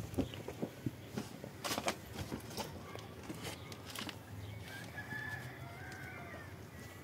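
A rooster crowing once, a long call from about five seconds in, over scattered knocks and clatter of pots and utensils being handled.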